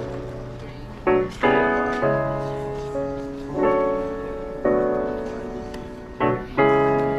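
Piano music: slow chords, a new one struck every second or so, each ringing and fading away.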